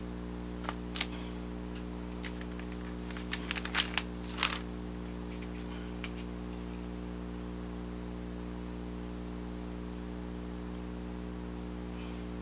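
A steady low hum throughout. Over it, hands handling craft-foam strips on newspaper make a few short rustles and taps in the first four seconds or so, the last a slightly longer rustle.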